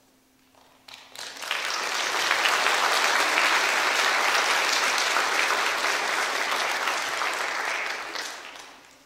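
A church congregation applauding: the clapping starts about a second in, builds quickly to a steady level, and dies away near the end.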